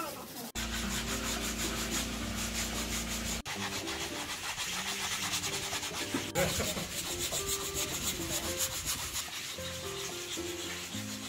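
Sandpaper rubbed by hand over a small hardwood block in quick back-and-forth strokes, a steady scratchy scraping that breaks off briefly a few times.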